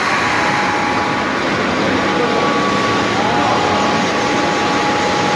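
Steady industrial machinery noise, a continuous rushing hum with faint, steady high whining tones running through it.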